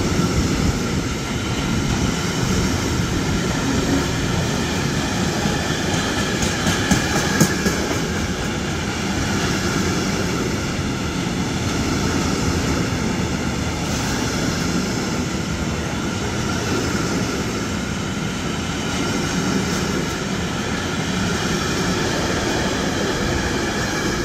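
Freight train of container flat wagons rolling past at close range: a steady rumble and rush of wheels on rail, with a few sharp clicks about seven seconds in.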